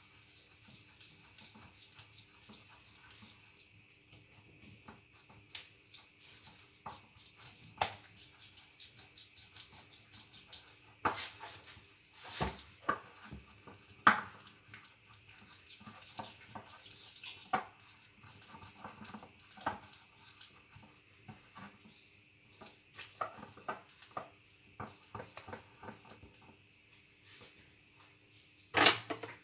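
A spoon stirring a stiff paste of honey with ground cinnamon and ginger in a dish: irregular clicks and scrapes against the dish, with two sharper knocks near the end.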